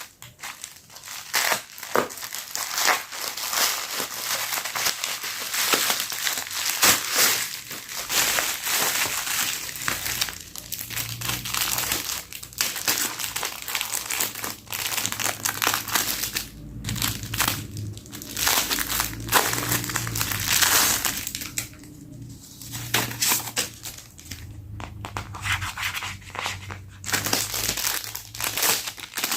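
Parcel packaging being handled, crumpled and torn open: dense, irregular rustling with many small crackles.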